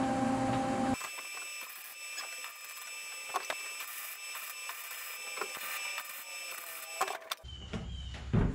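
MIG welder tack-welding steel plates, the arc crackling under a steady high whine from about a second in until about seven seconds in. Near the end come a few knocks.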